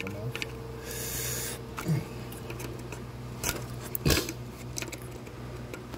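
Flathead screwdriver working at the plastic locking tabs of ignition coil connectors: scraping and a few sharp clicks and knocks, the loudest about four seconds in, with a short hiss about a second in.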